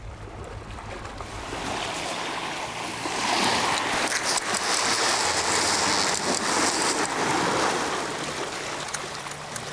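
Sea waves washing and splashing against shoreline rocks, swelling about three seconds in and easing off toward the end.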